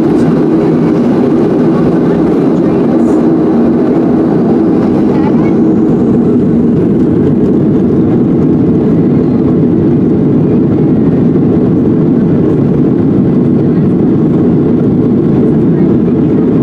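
Steady, low drone inside the cabin of a Boeing 737-700 taxiing on the ground, from its twin CFM56 engines and the airframe.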